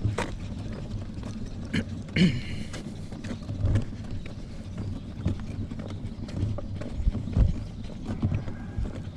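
Walking along a concrete sidewalk with a stroller: footsteps and rolling wheels, a low rumble with irregular clicks and knocks.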